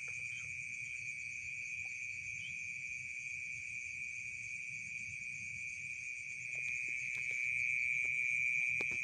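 Night insects, crickets, chirring steadily in an unbroken high chorus that grows louder about two-thirds of the way through.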